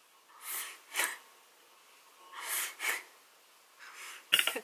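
Seed beads hissing as they slide around the spinning wooden bowl of a Beadalon Spin-N-Bead Junior bead spinner, in short rushes that come in pairs about every one and a half seconds.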